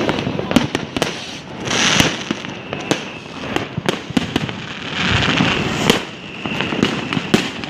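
Fireworks going off: many sharp bangs and pops at irregular intervals, with louder rushing, crackling bursts about two seconds in and again around five seconds in.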